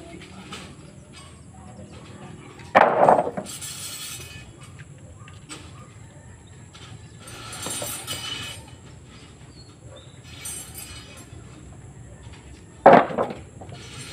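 Lengths of coco lumber dropped onto a pile of timber: two loud wooden clattering impacts about ten seconds apart, with quieter scuffs in between.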